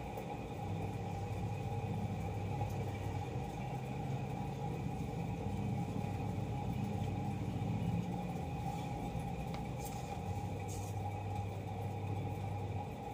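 Low, steady rumble of an engine running, dipping briefly and then returning, over a faint constant hum; a couple of light clicks near the end.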